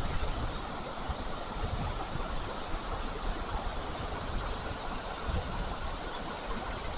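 Steady rushing noise with irregular low rumbles, no voices.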